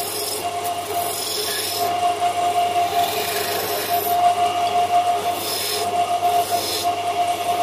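Wood lathe spinning a small wooden spindle while a hand-held turning chisel cuts into it: a hissing, scraping cut that swells and fades over several passes above the lathe's steady hum.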